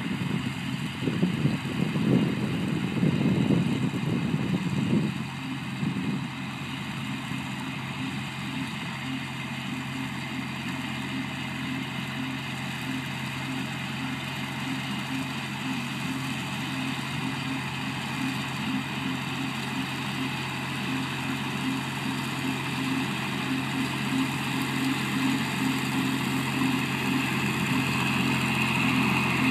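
John Deere 4020 tractor's six-cylinder engine running steadily as it pulls an HX15 batwing rotary mower, growing slowly louder as it comes closer. Gusts of wind buffet the microphone for the first five seconds or so.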